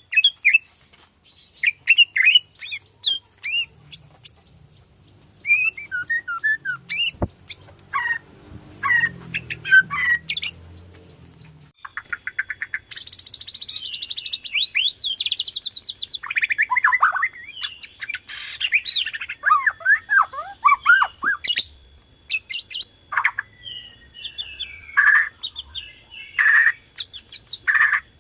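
Bornean white-rumped shama (murai batu) singing a loud, varied song of short whistles, sliding notes and sharp chips. About twelve seconds in, the song turns into a dense run of rapid high trills.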